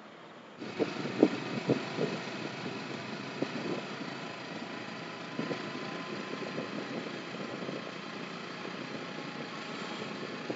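Motorcycle engine running while the bike rides along a city street. It cuts in abruptly about half a second in, with a few louder thumps in the first two seconds.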